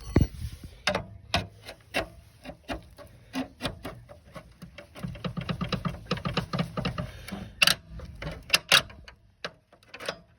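Metal tire-change tools being handled: scattered sharp clicks and knocks, with a fast run of rapid clicking about five seconds in that lasts a couple of seconds.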